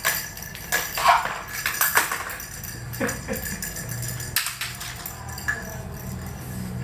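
Irregular jingling and light clattering, with several sharp knocks.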